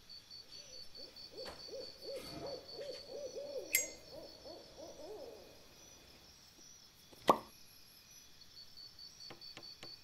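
A steady, evenly pulsing high chirp runs throughout. A run of about a dozen quick low warbling hoots fills the first half. About seven seconds in, a single sharp metallic click from the brass Zippo lighter's hinged lid is the loudest sound, followed by a few faint ticks near the end.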